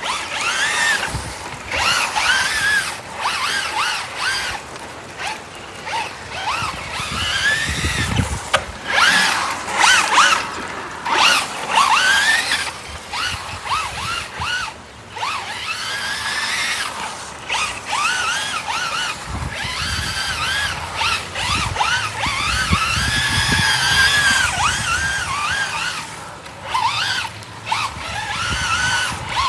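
Brushless motor of a Traxxas Rally VXL 3S RC car whining, its pitch rising and falling again and again as the throttle is worked, over a steady hiss of rain.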